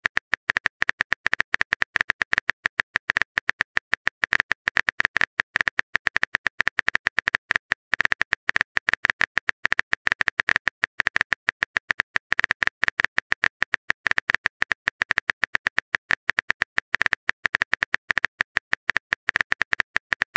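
Phone keyboard typing sound effect from a texting app: rapid, evenly spaced key clicks, several a second, as a chat message is typed out.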